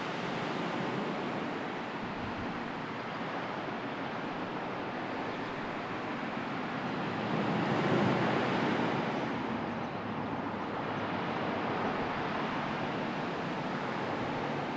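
Sea waves washing ashore: a steady rush of surf, with one wave swelling louder about eight seconds in.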